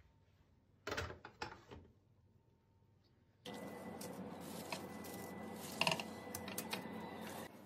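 A metal baking tray knocks and clatters a few times about a second in. Then comes a steady background hiss with scattered light clicks and rustles as gloved hands move roasted potato wedges on baking paper.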